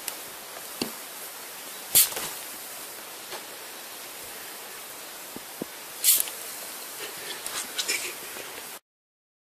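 Steady hiss with sharp plastic clicks and knocks from a printhead and its cleaning tube being handled, the two loudest about two and six seconds in and a run of small clicks near the end; the sound then cuts off abruptly.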